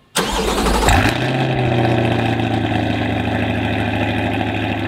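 2020 Chevrolet Corvette C8's 6.2-litre V8 cold-starting through Soul Performance sport catalytic converters and the NPP performance exhaust: a brief crank, a loud flare about a second in, then a steady idle.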